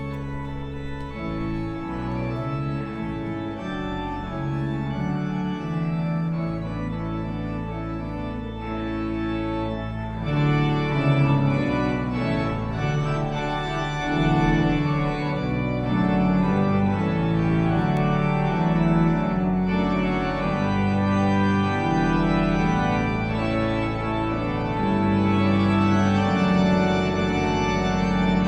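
Organ playing held chords over a moving bass line, growing fuller and louder about ten seconds in.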